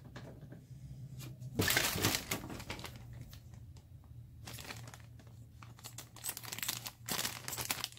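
Happy Meal toy packaging crinkling and rustling as it is handled and opened, in irregular bursts, loudest about two seconds in, with another run of crackling near the end.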